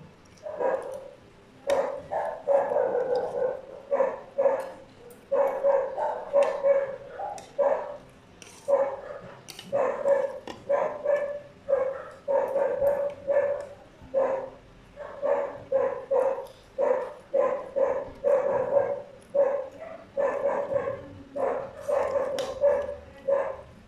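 A dog whining and yipping over and over in short pitched cries, with spoons and forks clinking on plates.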